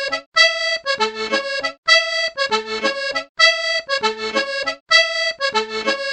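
Background music: a bright, bouncy melody of short, detached notes repeating the same phrase over and over.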